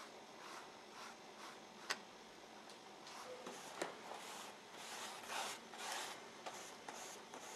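Paintbrush strokes spreading wet paint across the paper pages of an open book: faint, repeated swishes that come thicker and faster in the second half, with a light tap about two seconds in.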